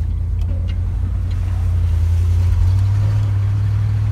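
A vehicle driving slowly along a muddy dirt track, its engine droning low and steady as heard from inside the cab; the engine note steps up slightly about two-thirds of the way in.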